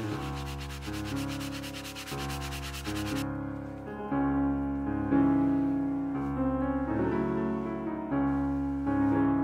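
A bristle brush scrubbing foamy cleaner into a leather seat cushion with rapid back-and-forth strokes, stopping suddenly about three seconds in. Piano music plays throughout.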